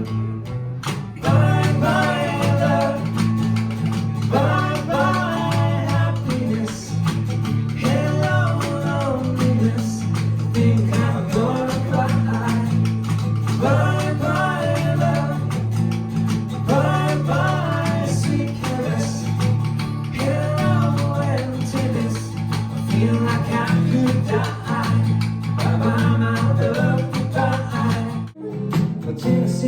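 A live rock and roll band playing, guitars over a steady bass line, with a melody in short phrases. The band breaks off briefly near the end.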